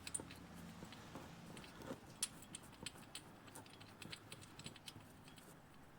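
Faint, scattered light clicks and taps of hand tools and metal parts being handled while fitting an engine pulley, with one sharper tick about two seconds in.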